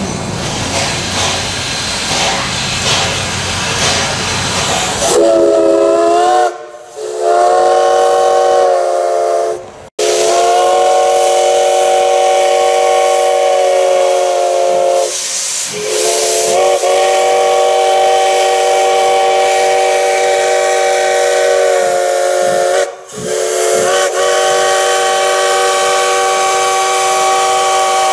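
Steam hissing from the steam locomotive, then the chime whistle of Baldwin steam locomotive No. 58 sounding a warning before departure. The whistle is a chord of several tones, blown in long blasts with short breaks between them, and steam keeps hissing underneath.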